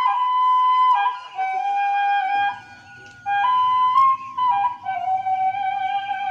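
Background music: a flute playing a slow melody of held notes stepping up and down, with a low accompaniment coming in about two seconds in.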